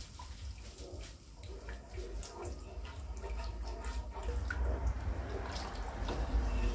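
Wooden spoon stirring ogbono soup thinned with chicken stock in a large non-stick pot: wet sloshing and stirring of the thick liquid, with scattered light clicks of the spoon against the pot.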